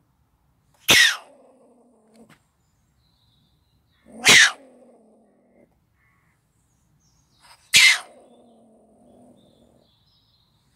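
Stone marten caught in a wire cage trap, screaming: three short, sharp cries about three and a half seconds apart, each falling in pitch. These are the distress cries of the trapped animal.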